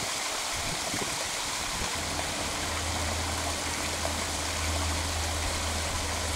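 Steady rush of running water, like a stream or waterfall, with a low steady hum that comes in about two seconds in.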